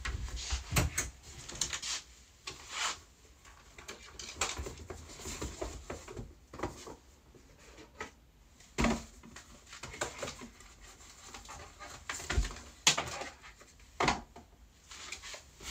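Scattered rustling, light knocks and clicks as small wallets and pouches are picked up and handled in a small room, with some breathing.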